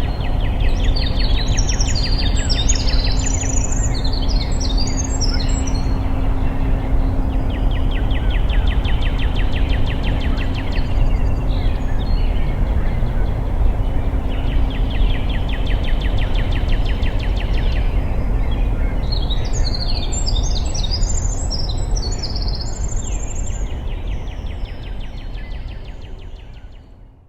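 Spring woodland bird chorus of wrens, northern cardinals, American robins and sparrows: two long, bubbling warbled songs and several repeated trills, over a steady low rumble of road traffic. It fades out near the end.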